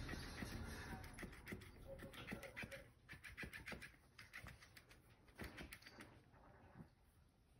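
Faint scuffing and soft taps, dense at first and thinning out, as a cat paws at and mouths a plush fish toy on a fabric mat.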